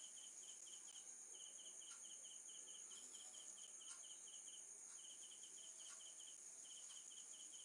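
Faint night-time cricket chirping in short rapid trills of four or five pulses, repeating with brief gaps, over a steady high-pitched hum.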